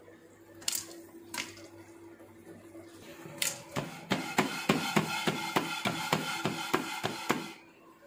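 Popcorn in a lidded stainless steel pot on the stove: a few single pops, then from about four seconds in an even clatter about five times a second as the pot is shaken over the burner, stopping shortly before the end.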